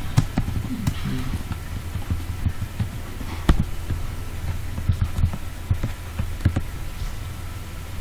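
Computer mouse clicking now and then over a steady low electrical hum, with the sharpest clicks about three and a half and six and a half seconds in.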